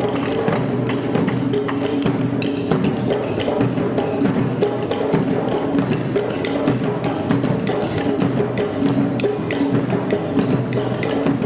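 Maculelê music: wooden sticks clacking against each other in a quick, dense rhythm over drums, playing without pause.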